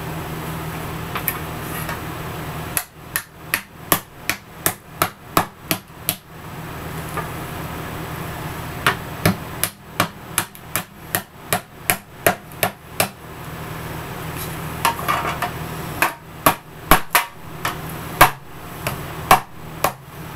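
Hammer blows on a bent metal license plate laid on a wooden block, flattening it out. The strikes come in quick runs of about three a second, with short pauses between the runs.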